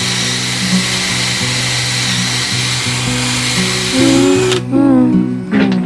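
Power drill running steadily with a high whine, cutting off suddenly about four and a half seconds in, over background music.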